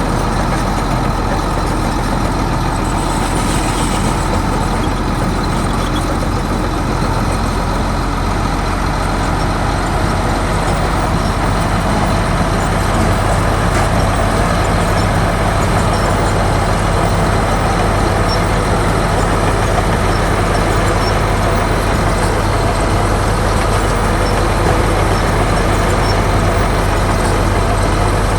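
Heavy diesel engine of earthmoving machinery running steadily, with a low, even drone that gets a little louder about twelve seconds in.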